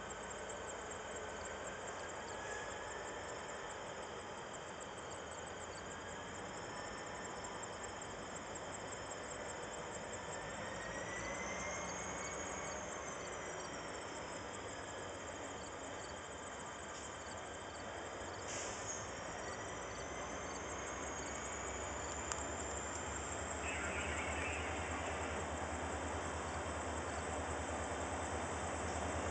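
Two diesel locomotives hauling hopper cars approach slowly, their low engine rumble growing louder over the last few seconds, over steady chirping of crickets. A few high wavering squeals rise and fall in the middle.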